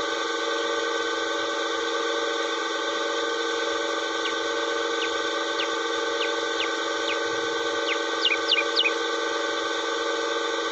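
A small bird gives a series of short, high, downward-sweeping chirps, starting about four seconds in, with a louder quick run of three near the end. Under them is a steady, unchanging drone of several tones.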